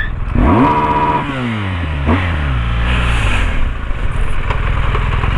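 BMW R 1200 GS Adventure's flat-twin engine revving up sharply for about a second, then falling away in pitch, then running steadily at low revs.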